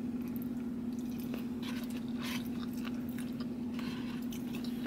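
A person chewing food, with faint clicks and scrapes of a plastic fork in a bowl, over a steady low hum.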